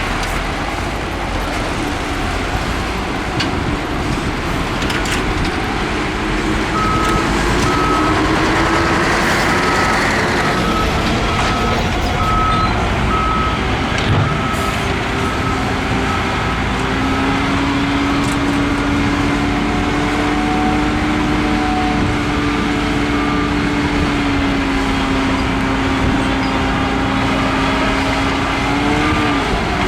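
Heavy diesel earthmoving machinery working, a bulldozer and dump truck: steady engine noise with a reversing alarm beeping in an even series for about eight seconds in the first half. About halfway through an engine note rises and holds, as a machine works under load.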